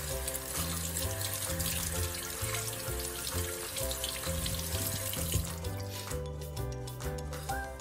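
Water from a bathroom tap running into a washbasin and over a bristle body brush as it is rinsed, stopping about six seconds in. Background music with a steady bass line plays throughout.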